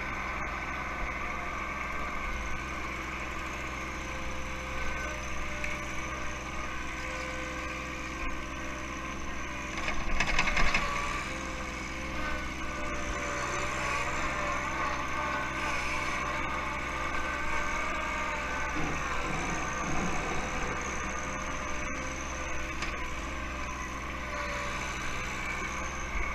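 Diesel engine of a John Deere 1 Series compact tractor running steadily while working a backhoe in snow. A louder, rough burst comes about ten seconds in, and the engine pitch dips briefly under load near twenty seconds.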